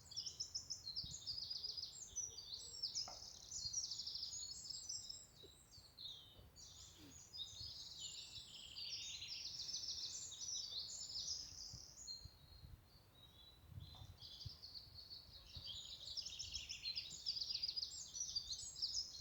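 Birds chirping and twittering in quick, overlapping trilled phrases, with a short lull about two-thirds of the way through, over a faint low background rumble.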